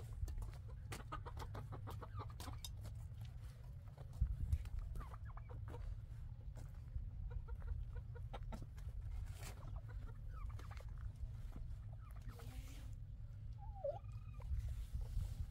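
Chickens clucking in short, scattered calls, with sharp clicks and knocks and a steady low rumble underneath.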